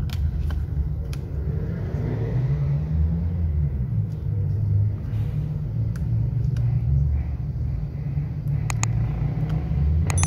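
Steady low rumble under scattered light clicks and knocks as the plastic casing and circuit board of a Bluetooth speaker are handled. A short bright chime rings right at the end.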